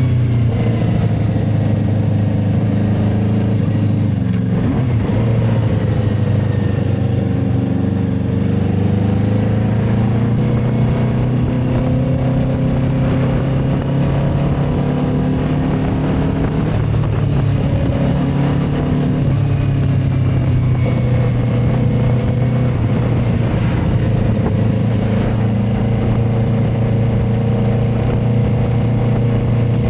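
Benda Dark Flag 500 Commander's V4 engine running under way through its twin exhausts at fairly steady revs, the pitch dipping and rising gently now and then with the throttle.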